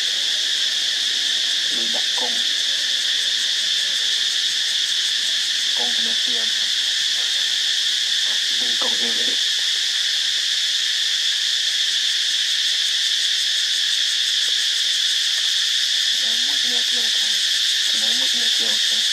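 Steady high-pitched drone of a forest insect chorus, with a few short low calls or voices breaking in now and then.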